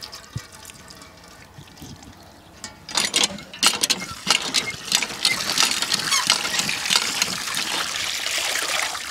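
Water from a hand pump splashing over a raw whole chicken as it is rinsed by hand. The flow is light for the first three seconds, then picks up about three seconds in into a louder, steady splashing with many small sharp splashes.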